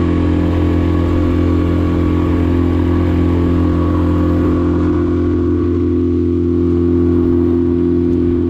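A vehicle engine running at a steady, unchanging speed: a loud, even hum.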